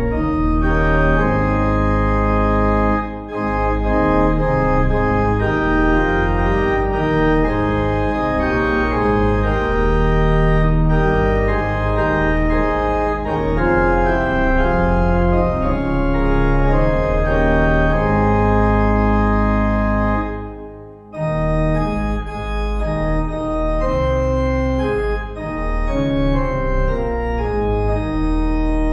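Organ music: held chords that change in steps, with a brief pause about 21 seconds in before the playing resumes.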